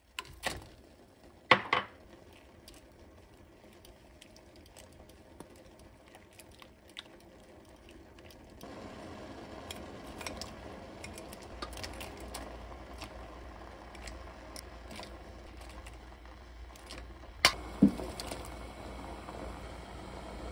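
Metal utensils knocking and clinking against a stainless-steel pot, a few sharp knocks near the start and two more near the end, over broth simmering with small pops and bubbling that grows louder about nine seconds in.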